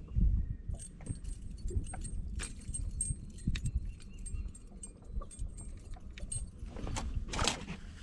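Scattered clicks, rattles and knocks as a hooked bass is swung aboard a bass boat and unhooked by hand, with a louder rustle and knock about seven and a half seconds in, over a steady low rumble.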